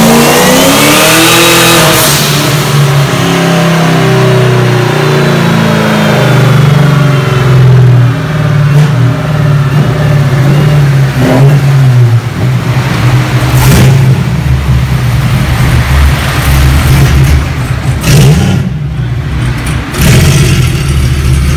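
Supercharged and turbocharged Chevrolet Camaro ZL1 6.2-litre V8 making a full-throttle pull on a chassis dyno. It revs up with a rising whine over the first couple of seconds and holds loud, then winds back down to an uneven idle about twelve seconds in, with a few sharp cracks afterwards.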